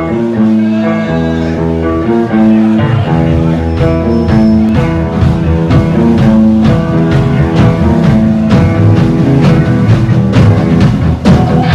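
Live rock band playing an instrumental passage: electric guitar notes ring out alone at first, then drums and bass come in about three seconds in.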